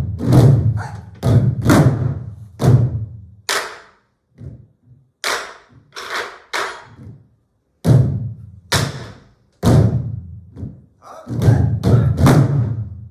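An ensemble of sori-buk (Korean pansori barrel drums) playing together in uneven rhythmic groups. Deep thumps on the drumheads mix with sharp clacks of sticks on the wooden drum shells.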